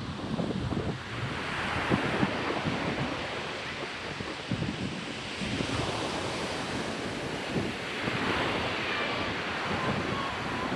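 Ocean surf on a beach, waves washing in about a second and a half in and again about eight seconds in, with wind buffeting the microphone.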